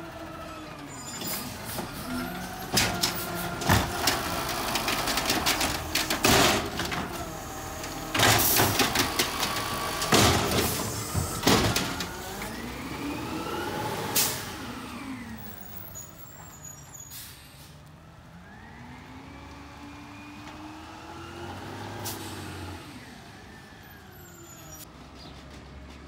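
Automated side-loader garbage truck emptying carts: the hydraulic lift arm whines while the carts bang and knock against the hopper in a run of loud impacts. About fourteen seconds in comes an air-brake hiss, and then the diesel engine revs as the truck pulls away, fading.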